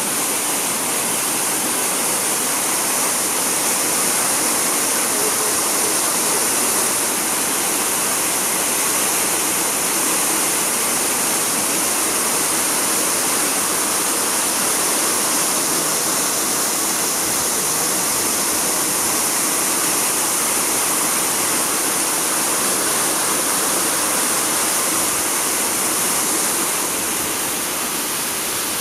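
Artificial waterfall: water pouring in many thin streams over a stepped stone wall and splashing into a pond, a steady, unbroken rush.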